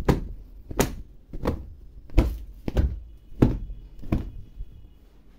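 Upholstered fabric sofa being beaten to knock the dust out: seven dull thumps at an even pace, about one and a half a second.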